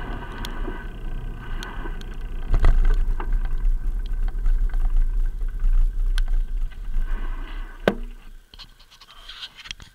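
Riding noise picked up by a bicycle-mounted action camera inside its waterproof case: a steady low rumble with clicks and rattles over bumps. A sharp knock comes about eight seconds in, and the sound goes quiet as the bike comes to a stop.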